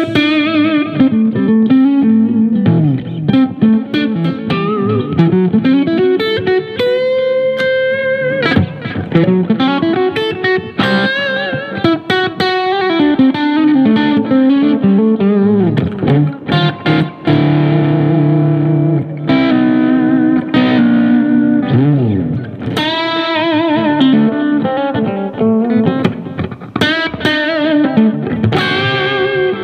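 Fender Stratocaster electric guitar played through a Yamaha THR10 amp: single-note blues-rock lead lines with string bends and wide vibrato.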